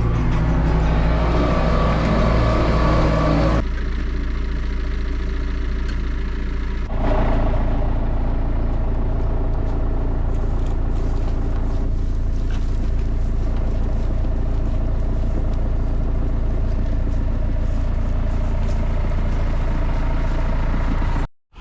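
Tractor engine running steadily, a continuous low drone. The sound changes abruptly about four and seven seconds in, and cuts off near the end.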